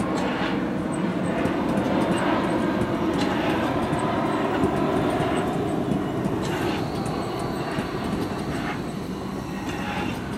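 Hamburg U-Bahn train rolling past over the station trackwork, a steady rumble of wheels on rail with occasional sharp clacks from rail joints and points. The noise eases slightly near the end as the last car passes.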